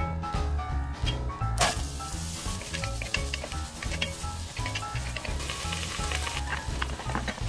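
Diced onion hitting melted butter in a hot enameled cast-iron pot and sizzling. It starts suddenly about a second and a half in and keeps up, with light clicks and scrapes from a wooden spatula stirring it. Boogie-woogie background music plays throughout.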